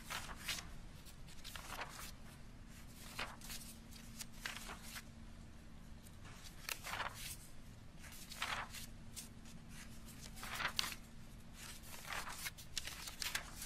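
Sheets of paper rustling and being shuffled close to a microphone, in irregular short rustles, over a faint steady hum.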